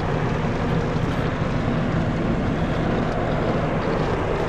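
Automatic car wash's spinning cloth brushes and water spray scrubbing over the car's windows, heard from inside the cabin as a steady rushing noise.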